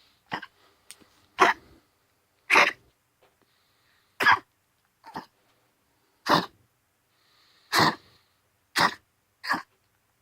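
Pomeranian coughing in a run of short hacks, about nine in ten seconds with irregular pauses between them. It is a persistent cough whose cause vets have not found: heart disease, pneumonia and a collapsed trachea have been ruled out.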